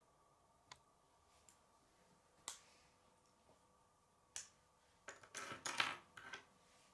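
Hard plastic K'nex pieces clicking: three separate sharp clicks, then a quick flurry of clicks and rattling about five seconds in.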